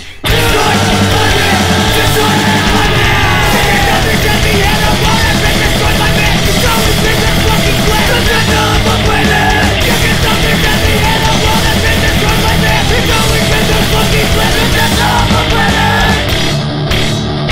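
Hardcore punk band recording: heavy, aggressive music at full volume. It breaks off for an instant right at the start, then plays on without a break.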